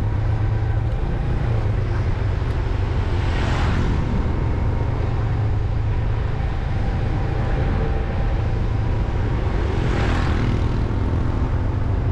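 Motorbike engine running steadily at road speed, with wind rushing over the microphone. Two brief swells of rushing noise come about three and a half seconds and ten seconds in.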